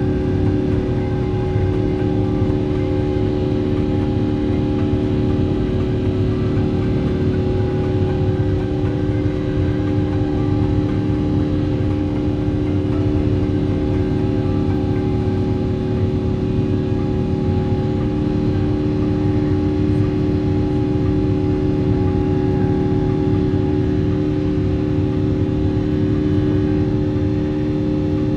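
Airbus A350-900 cabin noise from its Rolls-Royce Trent XWB engines running steadily: a deep rumble under several steady humming tones that hold the same pitch.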